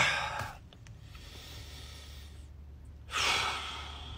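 A person's breath: a short, sharp breath right at the start and a longer one about three seconds in that fades away, over a faint low hum.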